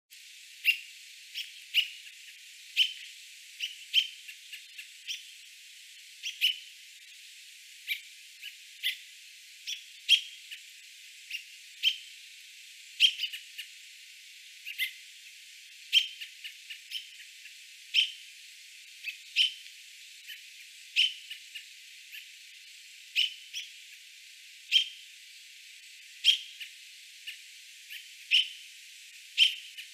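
American robin giving short, sharp warning calls, repeated every second or so, some notes louder than others. These are the alarm calls robins give to their fledglings on the ground.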